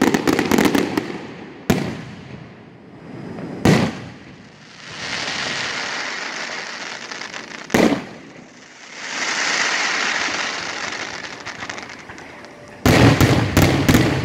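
Aerial firework shells bursting: a flurry of sharp bangs at the start, then single bangs a few seconds apart with long stretches of crackling hiss between them, and a rapid volley of bangs near the end.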